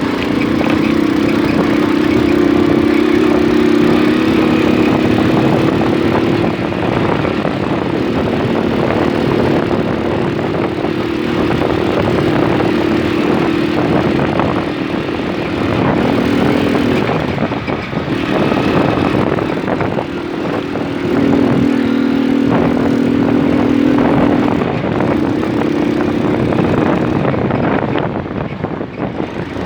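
Small moped engine running under way, its note shifting up and down several times as the throttle changes, over rough rattling noise.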